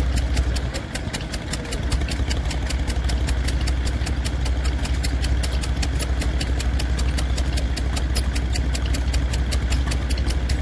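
Vintage stationary engine running steadily with an even, rapid beat.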